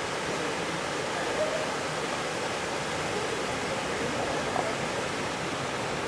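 Waterfalls pouring into rocky pools, a steady even rush of falling water.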